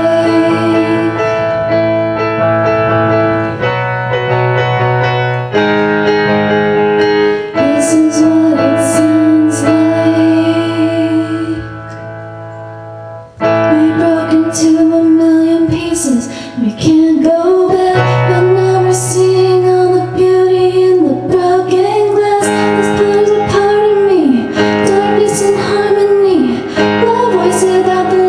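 Pop song with female voices singing long held notes and runs without clear words, over piano, guitar and drums with cymbal strokes. The backing drops to a quiet held passage about twelve seconds in, and the full band comes back with a hit about a second and a half later.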